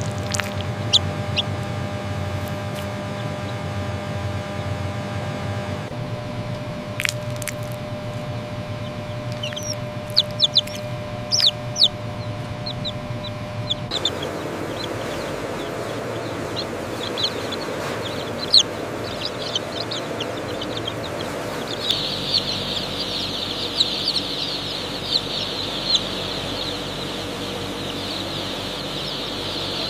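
Chicks peeping over a steady machine hum. The peeps are scattered at first and become a dense, continuous chorus from about two-thirds of the way in. The hum changes abruptly a couple of times.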